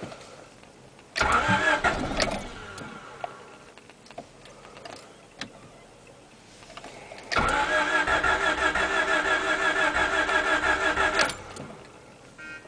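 Honda D16Z6 engine turned over by its starter motor without firing: a short crank of about a second, then, after a pause, a longer crank of about four seconds with an even, pulsing beat. The engine never catches on either attempt.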